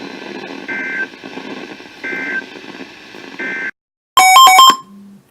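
Weather-radio receiver hiss carrying three short end-of-message SAME data bursts, warbling two-tone digital chirps about 1.3 s apart, after which the signal cuts out. About four seconds in, a brief, very loud electronic burst of rapidly switching beeping tones, then a short low hum.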